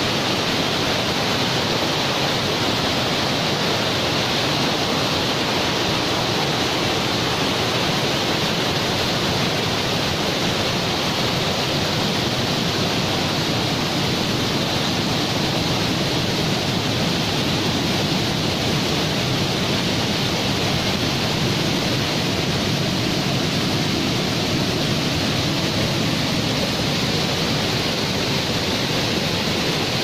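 Steady roar of a large waterfall in heavy flow, white water pouring over rock ledges.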